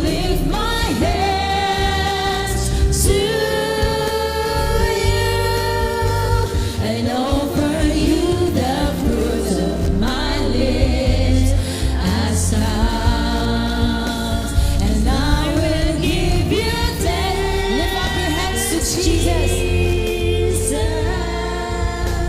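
Worship music: a group of voices singing a Christian praise song together over instrumental backing.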